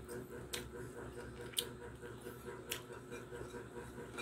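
Sounds of a person eating rice by hand: three sharp clicks about a second apart, over a steady low hum.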